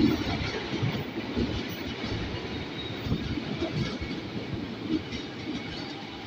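JR 205 series electric commuter train (set 205-24F+25F, ex Nambu Line) rolling past along the platform: a steady rumble of wheels on rail with irregular clacks. It is loudest at the start as the leading cars go by, then settles.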